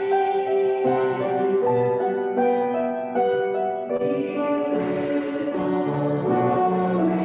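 Church music: a choir singing held, chord-like notes over a light instrumental accompaniment.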